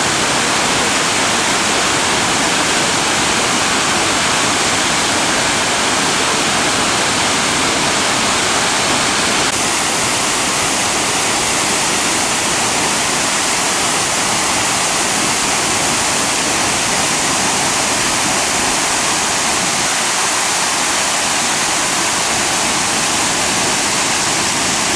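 Vachiratharn Waterfall: a loud, steady, even rush of falling water.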